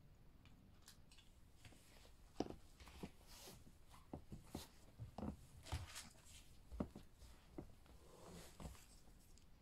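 Scattered soft clicks and knocks, then a calico cat hissing once near the end as a defensive warning.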